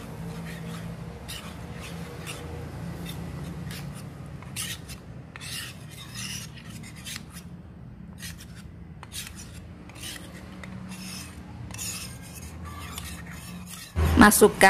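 Metal spoon scraping and stirring in a small stainless steel cup, dissolving tapioca starch in a little water; a run of irregular rasping strokes.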